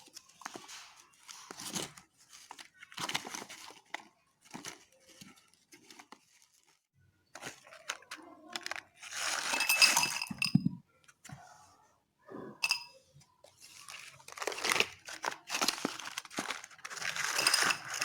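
Slate pencils and their paper packet being handled, with crinkling, tearing and crunching in irregular short bursts.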